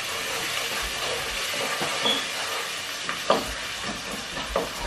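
Chopped onions and garlic sizzling as they fry in oil in a pot, stirred with a wooden spoon that scrapes and knocks against the pan a few times.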